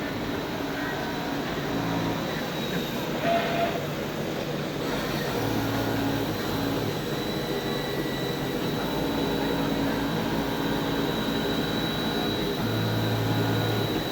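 Automatic fabric-cutting machine running: a steady mechanical drone with a constant high whine, and lower motor hums that start and stop every few seconds.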